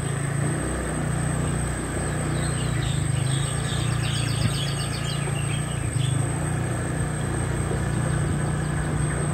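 Electric mountainboard climbing a slope on asphalt: a steady low hum and rolling rumble from its motors and tyres. Birds chirp briefly a few seconds in.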